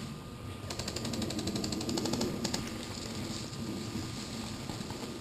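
Airsoft electric gun firing full-auto: a long burst of rapid, even ticking that starts about a second in and stops after about three seconds.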